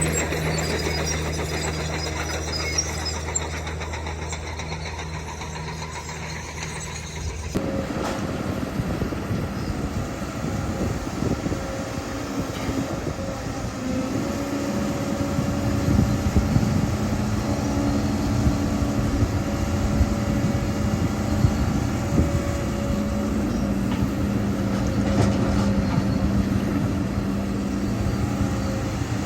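Diesel engine of heavy earthmoving machinery running. A steady low hum changes suddenly about seven seconds in to a louder, busier engine sound with a wavering whine that goes on to the end.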